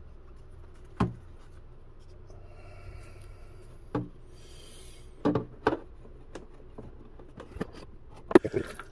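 A cloth rag rubbing and wiping over a carbon fiber tray inside a fiberglass RC boat hull, with several sharp knocks as hand and rag bump the hull.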